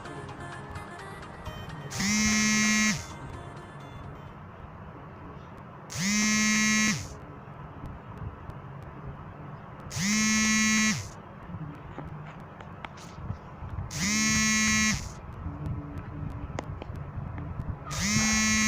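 A smartphone going off with a buzzing alarm: five even buzzes, each about a second long, repeating about every four seconds.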